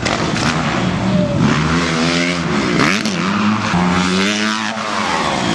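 Freestyle motocross dirt bike engines revving. The pitch swoops down sharply about three seconds in and climbs again, then falls once more near the end, over a constant noisy background.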